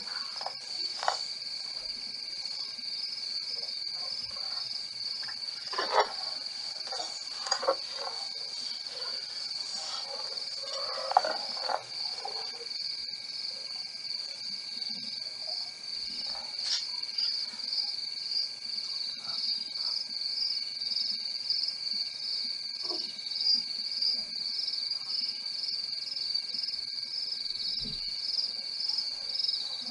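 Steady chorus of night insects, a high pulsing trill over a fainter lower steady tone. Scattered short knocks and splashes in the first dozen seconds come from elephants sparring and wading in shallow water.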